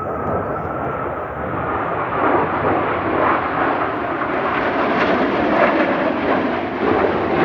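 Display airplanes flying in, their engine roar growing steadily louder as they approach.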